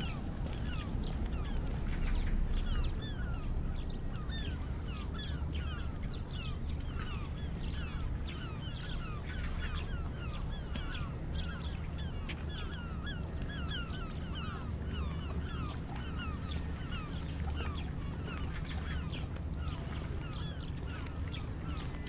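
A flock of birds calling, many short falling calls a second, over a steady low rumble.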